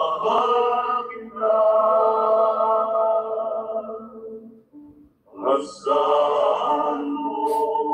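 A group of men singing together into microphones, holding long notes, with a short break about halfway through. Heard through a video call.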